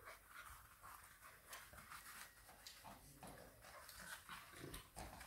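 Faint sounds of two English bulldog puppies play-wrestling: scattered small clicks and scuffles.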